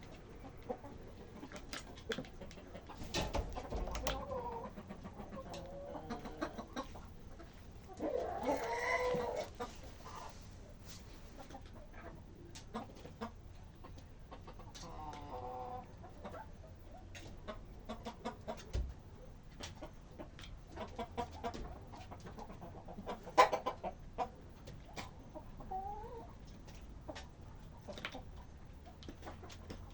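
Chickens clucking in short separate calls, with a louder, drawn-out call about nine seconds in and many brief clicks scattered between the calls.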